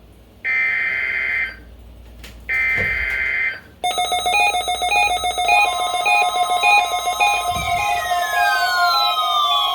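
Weather radio broadcast alert: two buzzy bursts of SAME digital header data, each about a second long with a second's gap between them. From about four seconds in comes a loud mix of electronic alarm tones: beeps alternating in pitch a couple of times a second, a steady tone joining midway, and falling siren-like sweeps near the end. This is the start of a weather radio tone-alarm test.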